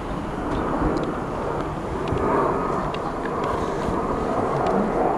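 Boeing 767 airliner on short final with its gear down, its two jet engines giving a steady noise at approach power.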